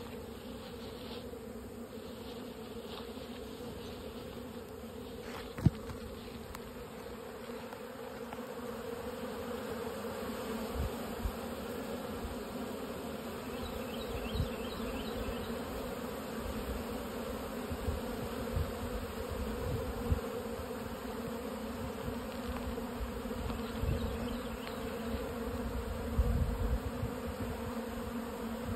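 Honeybees buzzing in a steady drone as they fly around and crowd the hive entrance. A single sharp tap comes about six seconds in, and low thuds come and go through the second half.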